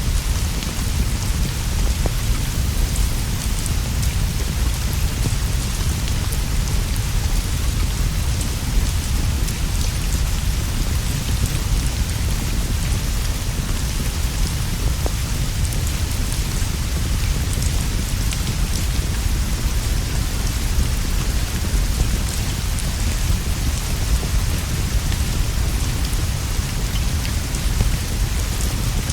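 Steady rain: a dense, even hiss of drops over a constant deep rumble.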